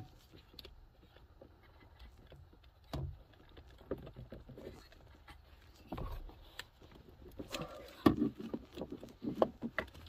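Scattered light plastic clicks, taps and rustling as hands work a stubborn retaining clip off a 2008 Chevy HHR's turn signal switch. There is a sharp click right at the start and a few louder knocks about three, six and eight seconds in.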